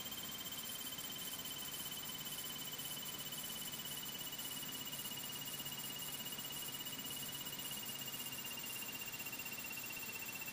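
A steady high-pitched electrical whine over hiss in the Cessna 152's headset audio, sliding slowly lower in pitch.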